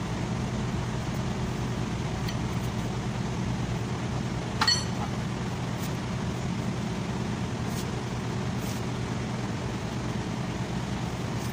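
A truck's front wheel hub being worked off its spindle by hand, with one sharp metallic clink about five seconds in, over a steady low machine hum.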